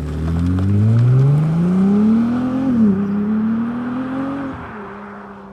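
Ferrari 296 GTB's twin-turbo V6 pulling away under acceleration: the engine note rises for almost three seconds, drops at an upshift, climbs again and drops once more at a second shift, then fades as the car moves off.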